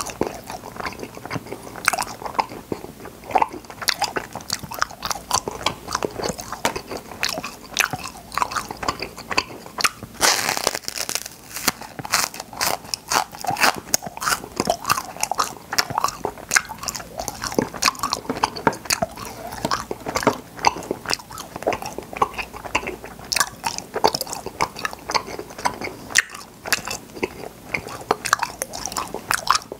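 Close-miked eating of popping-candy cotton candy: crunching and chewing, with dense, irregular crackling pops.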